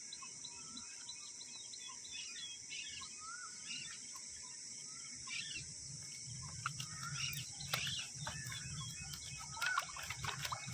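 Outdoor ambience of small birds chirping in short wavering calls over a steady high hiss. From about halfway, a low rumble and scattered clicks of handling join in and grow busier near the end.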